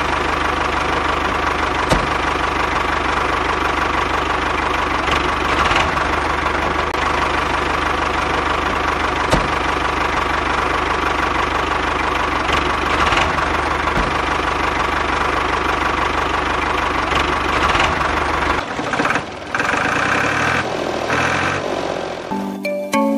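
Tractor engine running steadily with a low rumble for a miniature toy tractor; the rumble drops out about 19 seconds in, and music comes in near the end.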